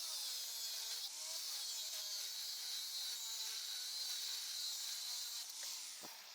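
Electric chainsaw cutting wood: a steady rasping hiss from the chain, with the motor's pitch dipping and recovering as the load changes. It fades out near the end.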